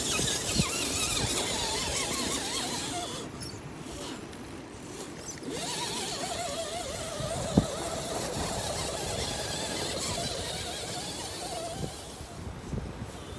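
RC rock crawler's brushed electric motor and geared drivetrain whining, the pitch wavering up and down with the throttle as the truck crawls over rocks, over a steady high hiss. A single sharp knock about seven and a half seconds in.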